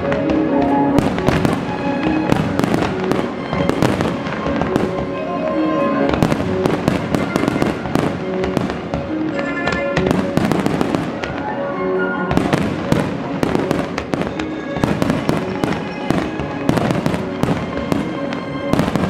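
Aerial fireworks shells bursting in rapid, overlapping reports with crackling, while music plays underneath.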